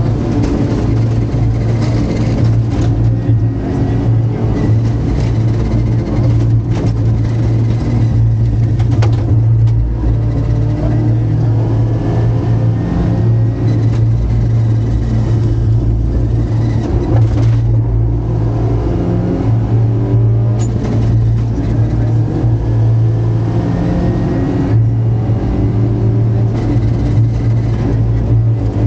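Rally car engine heard from inside the cockpit at stage pace: a loud, steady engine drone that repeatedly revs up and falls back, with road noise and a few brief knocks.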